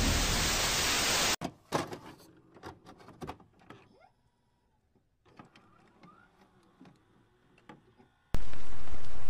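Edited intro sound effects: a hiss of noise fading down and cutting off abruptly about a second and a half in, then a scatter of sharp clicks and ticks, then a sudden loud burst of steady static near the end as the picture glitches.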